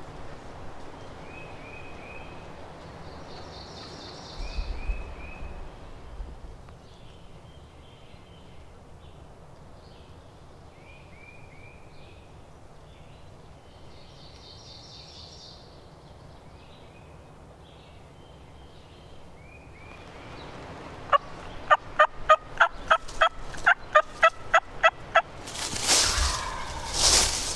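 Wild turkey calling: a rapid run of loud, evenly spaced yelps late on, then a louder gobble near the end. Small songbirds chip and trill faintly before it.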